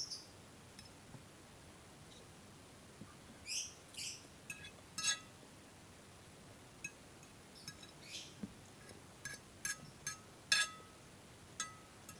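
Eating sounds from a person working through a plate of Indomie goreng: scattered, irregular mouth smacks and clicks, with several light clinks, sharper near the end.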